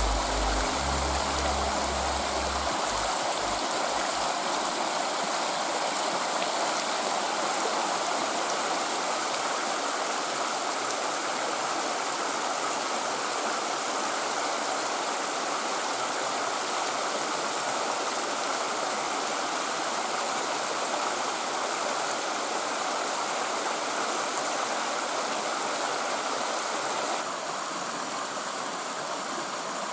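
Small mountain stream rushing steadily, a little quieter for the last few seconds.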